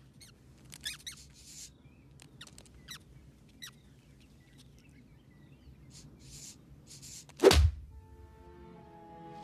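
Cartoon mouse squeaking in short high chirps and pattering about, then a single loud thud about seven and a half seconds in as a lion's paw slams down on it. Held orchestral notes come in just after the thud.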